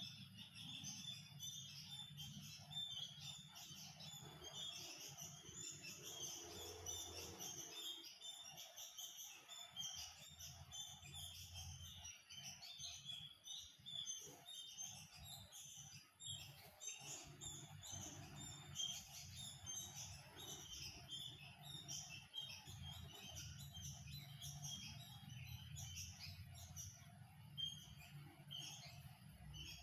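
Many small birds chirping and twittering together in short, overlapping calls, steady and fairly faint, with a low hum beneath.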